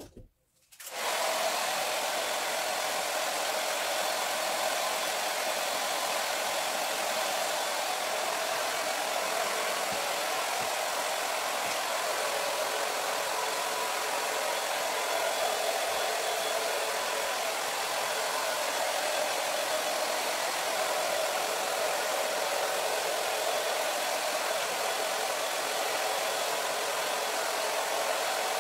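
Handheld hair dryer switched on about a second in and running steadily, with a constant whine over its blowing air as it dries hair.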